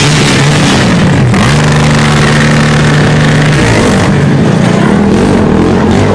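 ATV engines running and revving, the pitch rising and falling, with a steady held note for about two seconds in the middle.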